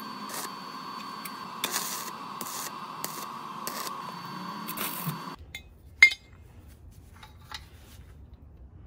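Stick (SMAW) arc welding: the arc crackles and hisses steadily with irregular pops for about five seconds, then stops abruptly. About a second later comes one sharp metallic clink, the loudest sound, followed by a few faint light ticks.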